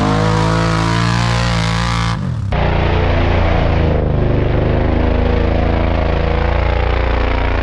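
Off-road vehicle engine running loud, its pitch dipping and then rising. About two seconds in the sound changes abruptly to another loud engine running at a steadier, lower speed.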